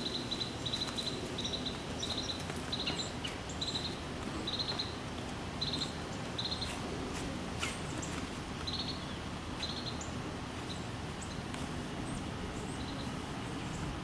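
A bird giving a run of short, high chirps, about two a second, which thin out to a few scattered ones about halfway through. Under them is a steady low background rumble.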